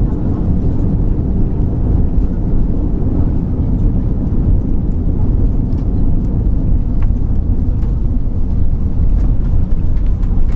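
Steady low rumble inside the cabin of a four-engined Airbus A340 airliner rolling along the runway just after touchdown.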